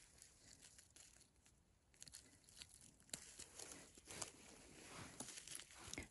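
Faint rustling and small snaps as a cluster of mushrooms is pulled up by gloved hands from moss and leaf litter, thickening from about two seconds in.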